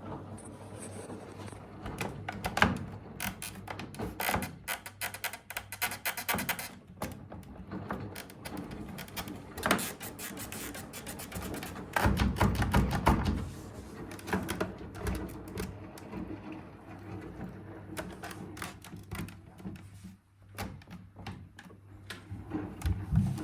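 Irregular knocking, clicking and rattling from a Hoover H Wash 500 washing machine, over a steady low hum, with a louder low rumble about halfway through.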